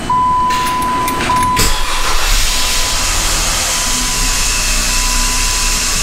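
Jeep Wrangler's key chime sounds as a steady beep, then about a second and a half in the engine cranks, catches and runs. A harsh grinding noise runs over the idle, the fault the owner later traced to the starter, and the chime carries on faintly underneath.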